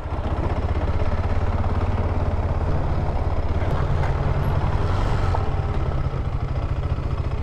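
KTM 390 Adventure's single-cylinder engine running steadily at low speed on a dirt track, a low even throb.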